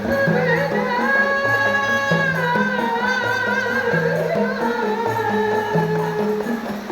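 Rebana frame-drum ensemble beating out a steady repeating rhythm while a voice sings long, wavering held notes over it.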